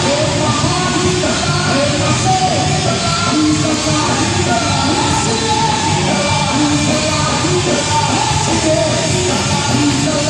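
Live gospel rock band playing: electric guitars, bass guitar and drum kit, with a man singing lead into a microphone over them.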